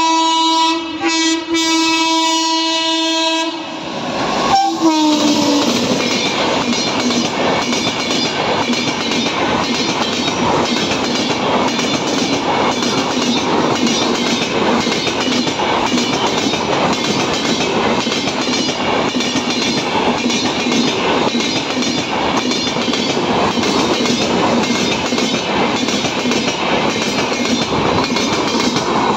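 WAP7 electric locomotive's horn sounds for about three and a half seconds with two brief breaks, then gives a short blast that drops in pitch as the engine passes. The coaches of the express then run past at speed with a steady rushing noise and an even, repeating wheel clatter over the wing rail of the crossing.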